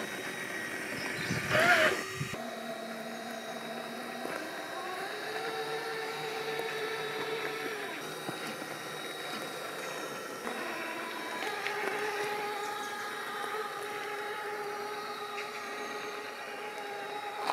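Axial SCX6 1/6-scale RC crawler's electric motor and geartrain whining as it crawls slowly over rock, the pitch stepping up and down with the throttle. In the first two seconds its tyres grind over gravel, with a louder scrape just before the whine starts.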